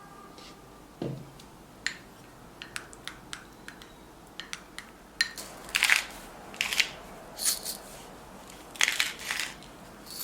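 Food preparation sounds: light taps and clicks, then from about five seconds in several short, louder crunching rustles.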